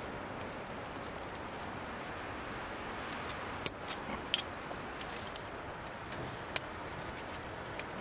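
Small fire of dry twigs crackling, with a few sharp pops, most of them around the middle and one near the end, over a steady hiss.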